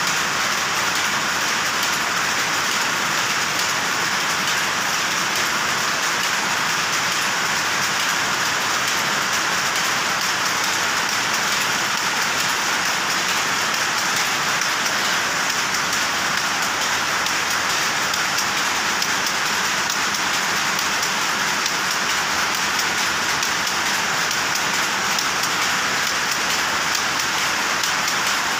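Powerlooms running: a dense, steady mechanical clatter that doesn't let up.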